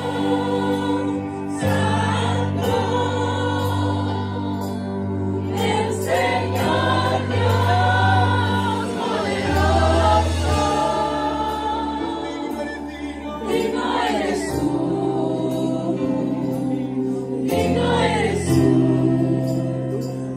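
Live Spanish-language worship music: several women singing together into microphones over electric guitar and sustained low notes that change every few seconds.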